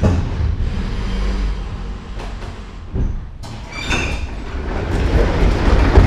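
Metro train rumbling as it brakes into a station, with a short high squeal from the wheels or brakes about four seconds in. Near the end the car's sliding doors open with a loud bang.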